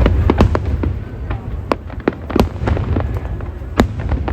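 Aerial fireworks going off in a rapid, irregular series of sharp bangs and crackling pops, the loudest bang nearly four seconds in.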